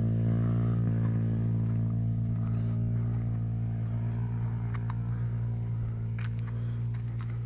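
An engine running steadily with a low, even hum that eases slightly in level, with a few faint clicks over it.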